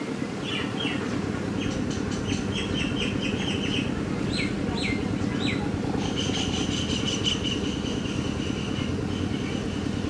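Small birds chirping: quick runs of short high chirps and a few down-slurred whistles, then a high trill held for about three seconds from about six seconds in, over a steady low rumble.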